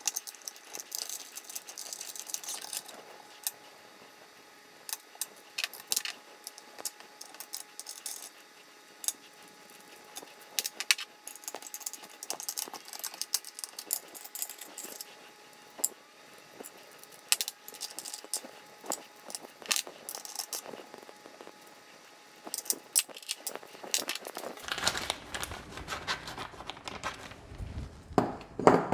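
Small steel socket-head cap screws and a hex key clinking and rattling against an aluminium T-slot bed and its rod-support blocks as the blocks are unbolted. Scattered sharp metallic clicks, sparser in the middle, then denser handling clatter with a low rumble over the last few seconds.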